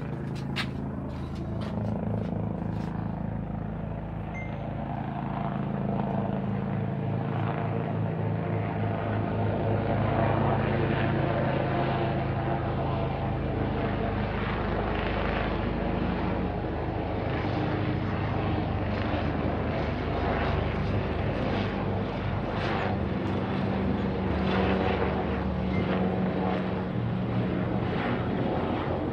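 Helicopter flying overhead: a steady low rotor and engine drone with a rhythmic chop from the blades. It grows louder over the first ten seconds or so, then holds steady.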